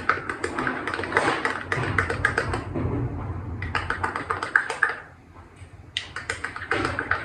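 A spoon stirring thick pap in a cup, making quick, repeated clinks and taps against the side. The clinks stop briefly about five seconds in, then start again.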